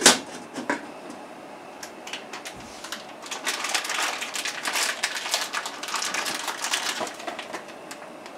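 A stainless steel stockpot lid set on with a sharp clank at the start, then a few seconds of dense crackling and rustling as empty cardboard pasta boxes are handled and crushed.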